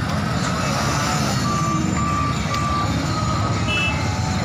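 Engines running at a level crossing, the diesel of a Kershaw ballast regulator mixed with idling motorcycles, under a repeating electronic warning beep: three short beeps about two a second in the middle.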